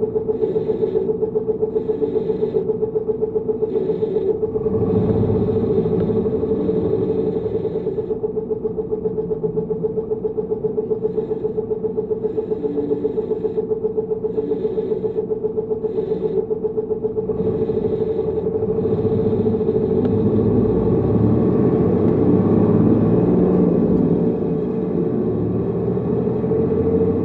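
Tokyu city bus running, its engine note under a steady high whine. The engine pulls harder about five seconds in and again for several seconds in the second half, where it is loudest.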